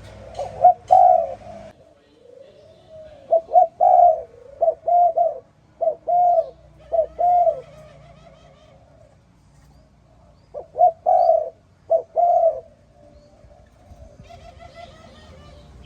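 Spotted dove cooing: several phrases of short, loud coos, with a fainter dove cooing steadily in the gaps. Faint chirps from small birds come in near the end.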